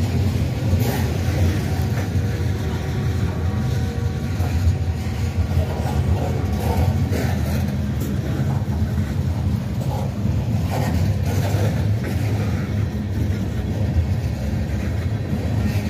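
Train rolling past with a steady low rumble and wheel-on-rail noise, with a few brief clicks.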